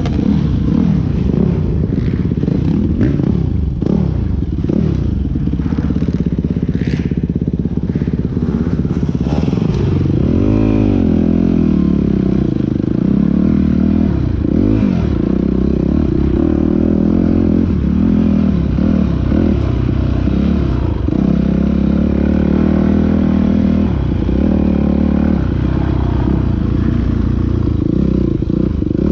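Dirt bike engine revving up and down constantly as it is ridden hard off-road, the pitch rising and falling every second or two. There are occasional knocks and clatters in the first several seconds.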